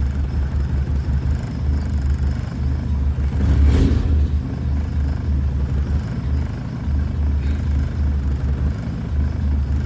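1992 VW Voyage GL 1.8's four-cylinder engine running, after a hard start, with a steady low rumble. A brief louder burst comes about four seconds in.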